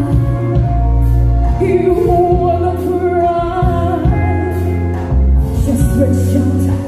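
A woman singing a slow love ballad live into a microphone with a band accompanying her, including keyboard and electric guitar. About two seconds in she holds a long note with vibrato.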